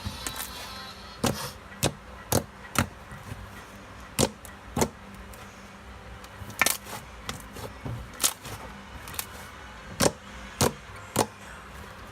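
Fluffy slime being squeezed and poked, giving sharp, irregular pops and clicks as trapped air bursts, about one every second.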